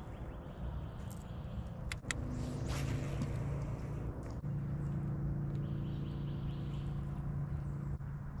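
Baitcasting reel being cranked to retrieve a square-bill crankbait, giving a steady low gear whir that drops out briefly about four seconds in and then resumes. A couple of sharp clicks about two seconds in.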